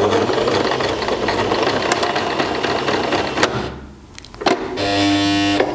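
W6 electric sewing machine stitching through thick carpet fabric, running steadily with fine ticks of the needle for about three and a half seconds. It pauses briefly, then runs again near the end with a steady whine.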